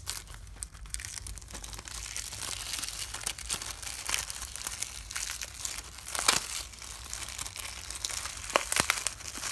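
Thin plastic shrink-wrap crinkling and tearing as it is peeled off a Blu-ray case. Steady crackling with a few louder snaps, the loudest about six seconds in.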